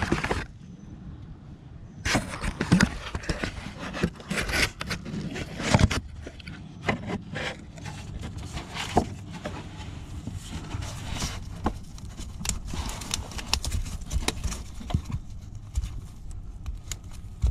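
Handling noises in a car's engine bay: irregular clicks, rubs and scrapes as a gloved hand reaches around plastic and metal parts to work out the CVT transmission's fill plug, with a short lull near the start.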